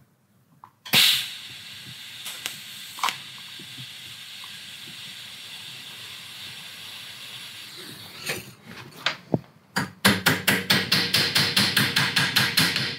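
TIG tack weld struck with a short crack, then argon shielding gas hissing steadily from the torch for several seconds as it post-flows over the tack. Near the end comes a fast, even run of metallic taps, about eight a second, as the tacked sheet-metal cone is tapped on its steel mandrel.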